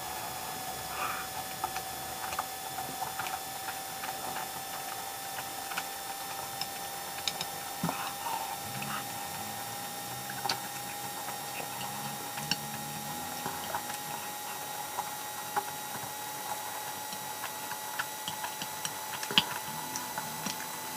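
A person eating spicy instant noodles and spam with chopsticks: irregular soft chewing and mouth clicks. A faint steady hum runs underneath.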